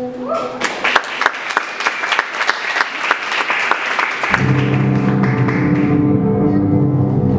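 Audience applause, dense clapping that starts just under a second in and fades out over the next four seconds or so. About four seconds in, music with deep held bass notes comes in and carries on.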